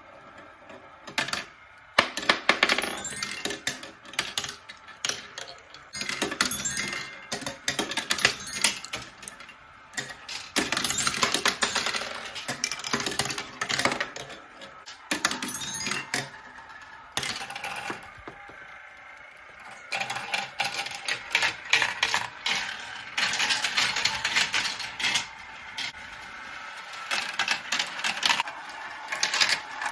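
Marbles rolling and clacking through a marble run: rapid clicking and rattling in spells, with short lulls between runs.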